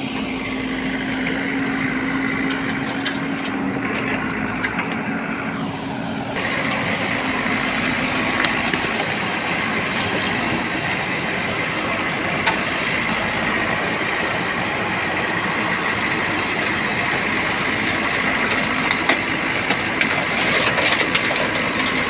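JCB 3DX backhoe loader's diesel engine running steadily while working, with a higher whine that slides down in pitch over the first six seconds.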